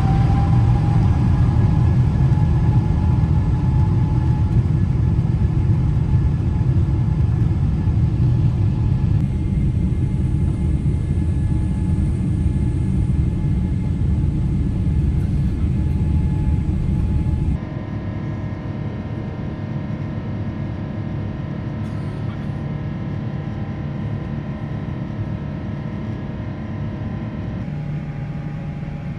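Jet airliner cabin noise from a Boeing 777-300ER: a loud, steady low rumble of engines and airflow, with an engine whine rising in pitch in the first few seconds. About two-thirds of the way through the sound changes abruptly and drops in level.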